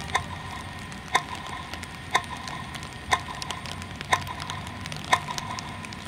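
A clock ticking steadily, one sharp tick a second, over a faint low hum.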